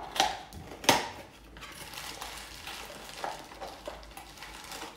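Hard 25 mm coconut charcoal cubes clinking as they are set into a stainless-steel hookah heat management device (kaloud): two sharp clinks in the first second, then a few lighter knocks.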